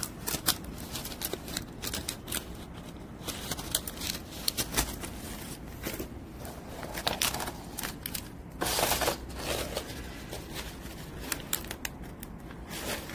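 Stiff parchment-paper air fryer liners rustling and crinkling as they are handled and pulled apart, in many short crackles, with a louder, longer rustle about nine seconds in.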